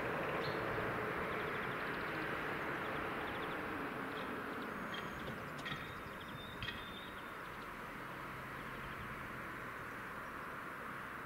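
Level crossing warning bell buzzing steadily while the barrier arms come down, slowly fading, with two short clicks around the middle.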